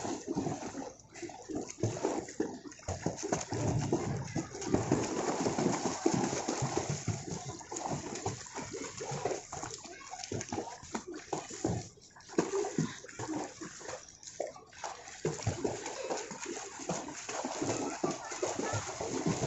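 Continuous irregular splashing of pool water as a child kicks and paddles through it.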